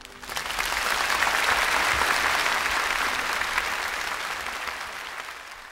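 Audience applause: clapping breaks out, swells within about a second, holds steady, then fades away near the end.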